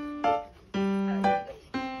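Background music: a light keyboard tune with short notes about twice a second.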